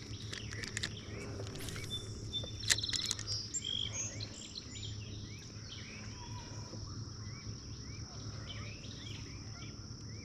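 Outdoor lakeside ambience: birds chirping with short rising calls over a steady high insect drone and a low hum. A few sharp clicks and knocks come in the first three seconds, the loudest a little under three seconds in.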